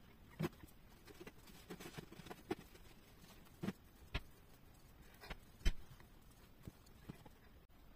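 Hands working a steel crochet hook through yarn: a string of small, sharp clicks and light handling noises at irregular intervals, the loudest a little before six seconds in.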